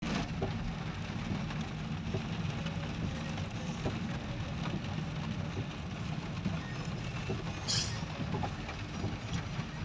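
Steady low rumble inside a car driving on a wet road in a storm: engine, tyre and wind noise, with a short hiss about eight seconds in.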